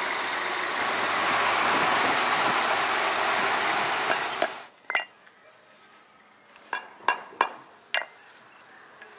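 Tractor-drawn tank sprayer hissing steadily as its jet sprays, over the tractor's running engine; the sound cuts off suddenly about four and a half seconds in. After that come a handful of sharp, separate knocks and clicks from a cobbler's tools working on a shoe heel.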